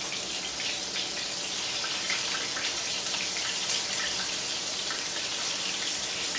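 Breaded chicken fillets frying in hot oil: a steady sizzle with scattered small crackles.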